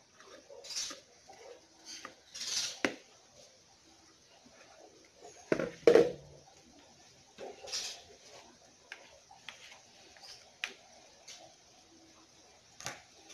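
Spatula scraping chocolate cake batter out of a ceramic bowl into an aluminium baking pan, with scattered scrapes and clinks. About six seconds in, a heavier knock as the bowl is set down on the counter, then the utensil scraping and tapping in the pan as the batter is spread.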